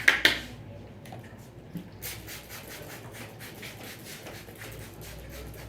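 Hands drumming the head in quick, even chopping strokes, about five a second, which stop shortly after the start. Then comes soft, repeated rubbing and scratching of the hands over hair and skin.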